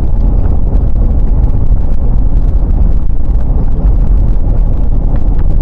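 Car driving along: a loud, steady low rumble of road and wind noise.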